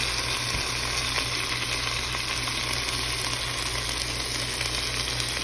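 Beef short ribs sizzling steadily in a pot of their own fat and juices.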